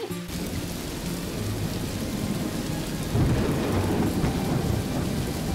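Heavy rain falling steadily, with a low rumble of thunder rolling in about three seconds in.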